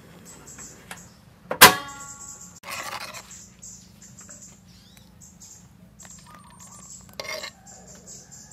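Kitchenware being handled: one loud, sharp, ringing clink of glass or metal about a second and a half in, then short scraping sounds near three seconds and again near seven, over a faint crackle from the simmering sauce and a steady low hum.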